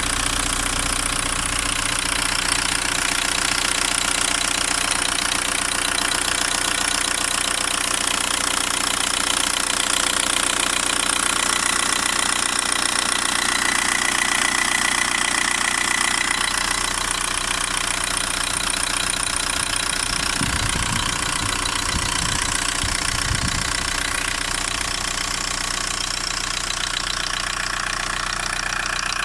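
Volkswagen Golf 1.9 TDI AHF four-cylinder turbodiesel idling with a steady, rhythmic ticking or knocking from the top of the engine, which the owner cannot place between an injector and a hydraulic lifter.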